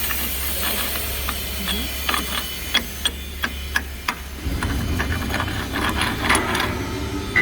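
Irregular sharp metallic clicks and knocks over a steady low hum. About halfway through, a louder low rumbling noise starts, with more clicks.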